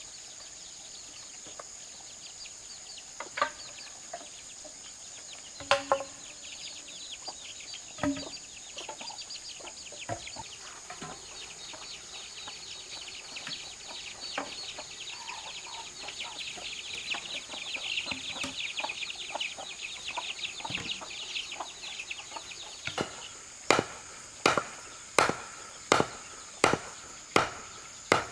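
Steady high insect drone with a hen clucking and a few scattered knocks. Near the end, seven or so sharp strikes about three-quarters of a second apart as a bamboo stake is hammered into the ground.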